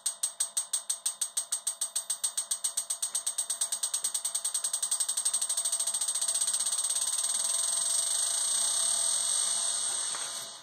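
A 3/4-inch steel ball bearing bouncing on the hardened face of the heat-treated Black Robin anvil: a long run of ringing clicks that come closer and closer together, merge into a continuous rattling chatter, and stop suddenly near the end. So long a run of bounces is the sign of a hard, well heat-treated face.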